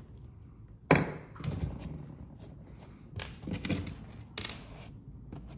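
Handling noise from a canvas tool bag and small screw hardware on a wooden workbench: one sharp knock about a second in, then several lighter taps and scuffs.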